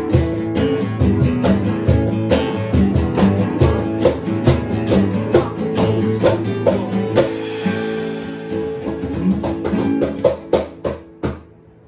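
Guitars strumming with cajón beats, playing out the song's ending. A few final accented hits come near the end, then the music stops.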